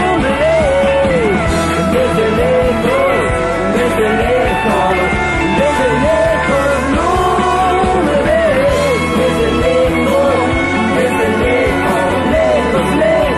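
Rock song playing, a full band with a bending lead melody line over steady bass and drums.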